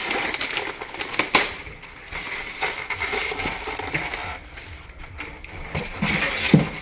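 Packaging being handled and unwrapped: crinkly rustling with irregular clicks and taps of plastic parts, and a sharper click about a second in.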